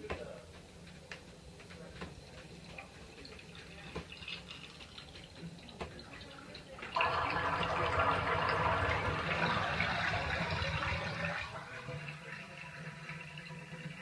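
Hydrotherapy tub's jet system running. A low steady hum with faint clicks, then about seven seconds in a much louder rushing sound with a whine starts suddenly, runs for about four seconds and drops back to a lower steady hum.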